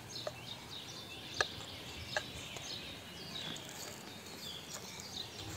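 A kitchen knife cutting through the baked crust of a pide on a porcelain plate, giving a few sharp crunching clicks, the loudest about a second and a half in. Birds chirp throughout.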